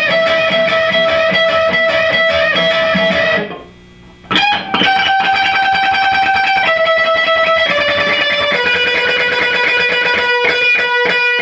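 Electric guitar lead from a single-coil Stratocaster through an all-tube amp: fast-picked notes repeated on one pitch, stepping to new notes, with a short break about three and a half seconds in. The signal runs through a switched-off non-true-bypass BOSS pedal, which the player hears as thinning the fat tube tone toward a solid-state sound.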